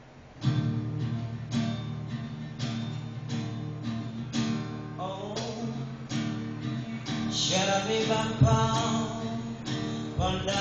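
Acoustic guitar strummed in a steady rhythm, about two strums a second, starting about half a second in; a man's voice comes in singing over it after about seven seconds.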